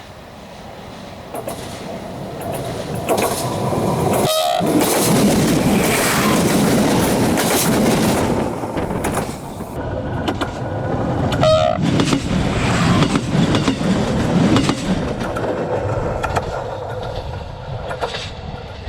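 Train wheels running on the rails, a loud rumble with the rapid clicks of wheels passing over rail joints. It swells about four seconds in and eases near the end, with two brief high tones, about four and eleven seconds in.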